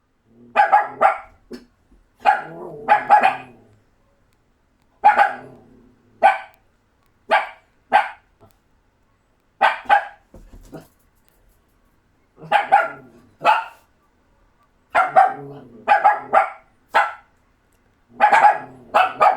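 Doberman puppies barking: short, sharp barks in clusters of two or three, with pauses of a second or two between the clusters.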